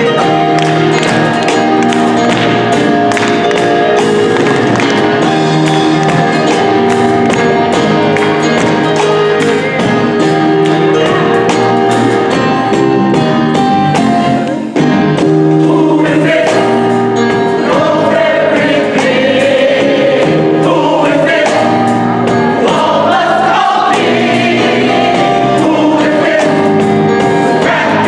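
Gospel choir singing sustained chords with a live band of bass guitar, drum kit and organ. In the second half a single lead voice winds up and down above the choir.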